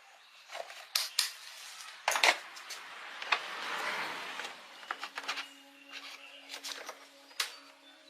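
Repeated sharp clicks and knocks of small hard parts and tools being handled, with a rasping, scraping noise about three to four seconds in.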